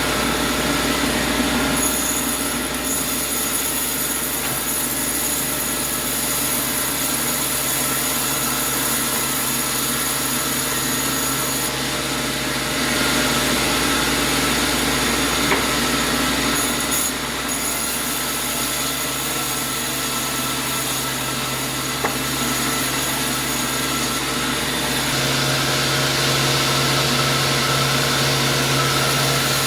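Sawmill machinery running steadily, a saw cutting through wood, with a machine hum under it. The pitch and mix of the sound change a few times, about 12 and 25 seconds in.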